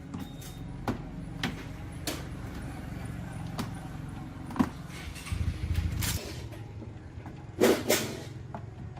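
Scattered knocks and clicks of metal fan parts being handled during the teardown of an old ceiling fan, over a steady low hum; a short scrape about halfway, then two louder ringing clanks in quick succession near the end.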